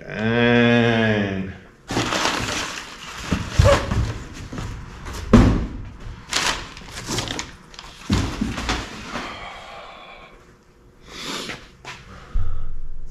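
A short hummed note, then packaging rustling and scraping with several sharp knocks as a Milodon baffled steel oil pan is unboxed and handled.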